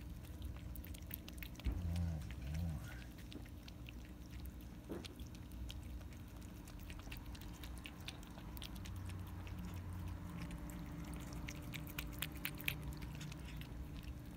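Cat lapping tuna juice from a ceramic saucer: a quick, irregular run of small wet tongue clicks.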